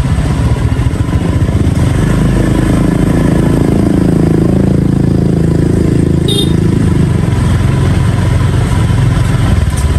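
Motorcycle engine running steadily at low speed close by, with a slight swell in the middle. A short high ping sounds about six seconds in.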